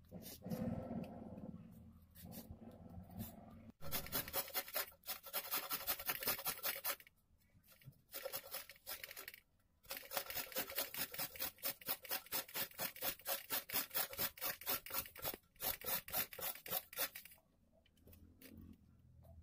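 Carrot being grated on a stainless-steel hand grater: a long run of rhythmic rasping strokes, about three or four a second, broken by a couple of short pauses and stopping a couple of seconds before the end.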